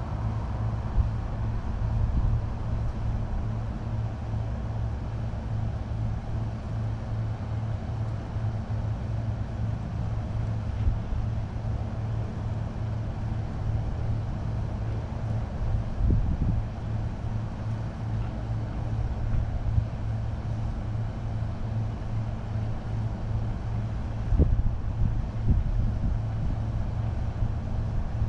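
Car being driven: a steady low engine and road rumble, with a few brief bumps late on.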